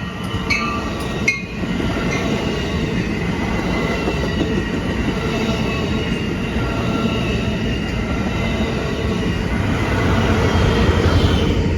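Passing train running along the rails in a steady rumble that grows louder near the end, with a faint high wheel squeal above it.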